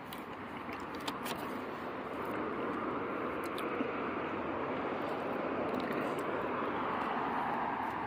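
Road traffic: a steady rush of passing vehicles that grows a little louder about two seconds in, with a few faint clicks.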